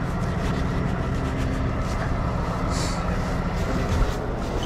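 Heavy wrecker truck's engine running steadily at an even pitch. A brief hiss comes near the middle and a single knock about four seconds in.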